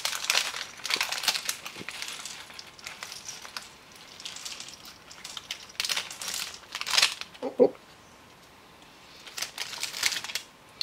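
Plastic Lego parts bag crinkling in bursts as it is handled and emptied, with small plastic Lego pieces spilling out onto the mat.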